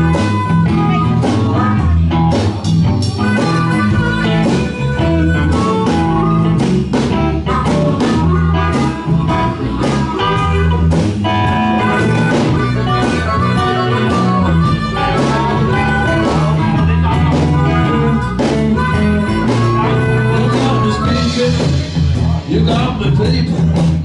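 Live band playing a blues-style number, with electric guitar over bass and drums keeping a steady beat.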